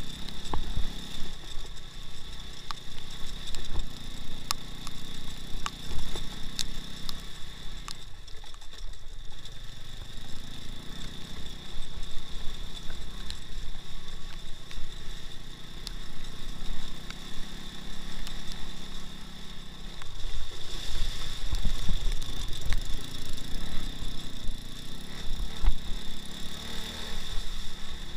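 Engine of a two-wheel-drive off-road motorcycle running under way, its note rising and falling with the throttle and easing off twice, with scattered knocks and rattles.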